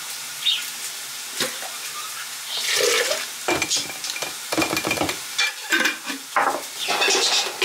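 A plastic storage container with a strainer basket and a glass jar being handled, and food from the jar tipped into the basket. It makes a string of plastic and glass knocks with short rushing, pouring sounds, the biggest about three seconds in and again near the end.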